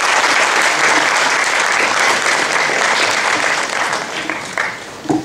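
Audience applauding, a dense clatter of many hands that dies away about four and a half seconds in.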